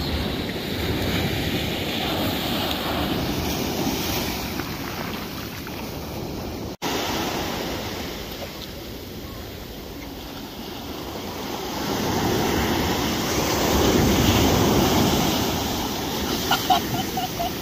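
Ocean surf washing onto the beach, with wind buffeting the microphone. The wash swells louder past the middle as a wave comes in, and the sound cuts out for an instant a little before halfway.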